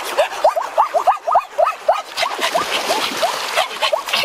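An animal's short rising calls repeat about three or four times a second. From about halfway through, water splashes as papayas are pushed through shallow river water.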